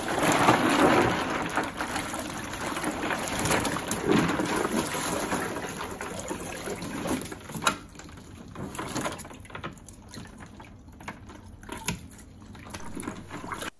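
Tap water pouring into a styrofoam box of water with a live tiger pufferfish in it, the water splashing and sloshing as the fish moves. The pouring is loudest for the first seven seconds or so, then quieter, with a few sharp splashes and drips as the fish is handled and lifted out.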